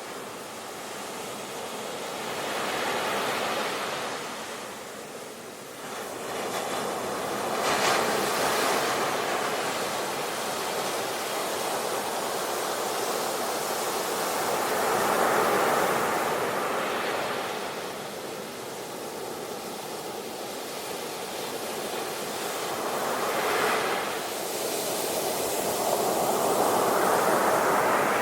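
Sea waves breaking and washing on the shore, a continuous rushing surf that swells and eases every few seconds, with sharper breaks about eight seconds in and near the end.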